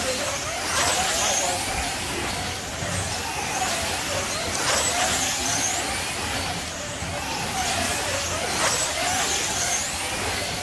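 Slot cars racing: their small electric motors whine, rising and falling in pitch as they speed up and slow down around the lap, with a rush as the pack goes past about every two seconds.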